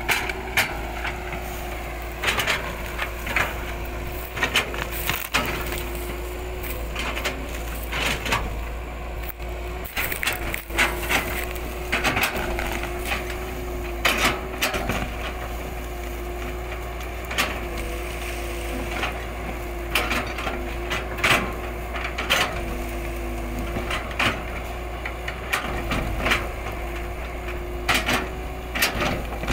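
Caterpillar hydraulic excavator running with a steady hum that dips off briefly now and then, while its bucket presses down on an uprooted tree's root ball. Many sharp cracks and snaps come from roots and wood splintering.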